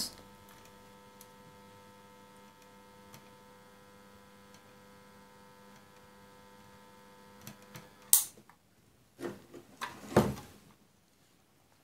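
Faint steady electrical hum made of several steady tones while solder is melted onto the plate's pads. The hum cuts off with a sharp click about eight seconds in, followed by two or three short noisy sounds.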